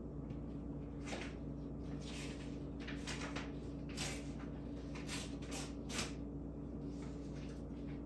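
Faint, irregular clicks and splashes from a grackle's beak dunking peanuts in a water bowl, over a steady low hum.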